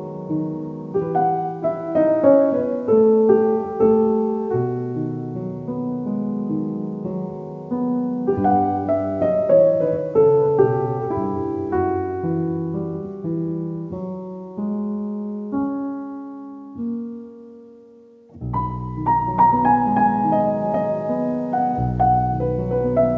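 Background piano music in slow melodic phrases. It fades away about three-quarters of the way through, then a fuller piano passage with deeper bass notes begins.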